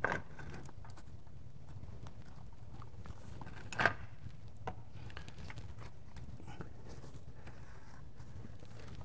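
Fuel injectors being pressed by hand into an LT1 V8's intake: a few light clicks and knocks over a steady low hum, the sharpest right at the start and the loudest about four seconds in.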